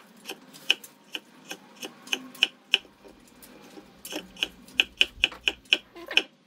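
Kitchen knife slicing a yellow bell pepper into strips on a wooden cutting board: a run of sharp taps as the blade meets the board, about three a second, a short pause near the middle, then quicker at about four a second.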